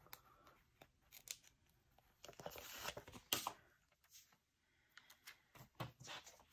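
Faint paper sounds of a planner sticker sheet being handled and a sticker taken off it: soft rustles and small clicks, with a longer rustle about two and a half seconds in.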